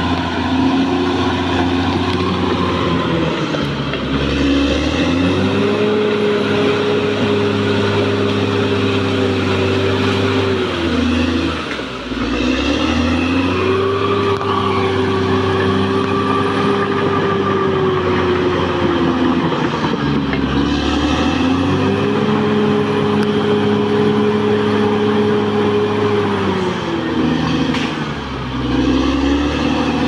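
Caterpillar D6R XL crawler bulldozer's diesel engine running as the machine clears brush and felled trees. The engine revs up, holds high for about six seconds, then drops back, three times over.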